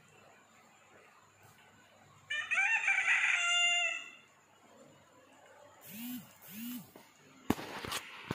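Rooster crowing once, a cock-a-doodle-doo of under two seconds starting about two seconds in. Two short, low clucks follow, then a few sharp clicks near the end.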